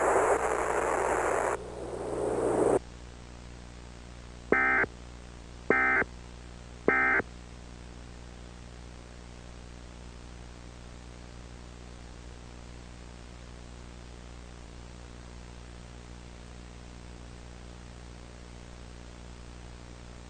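Static-laden radio audio that cuts off about three seconds in. Then come three short warbling digital data bursts about a second apart: the EAS SAME end-of-message (EOM) code sent three times. A steady low hiss and hum follows.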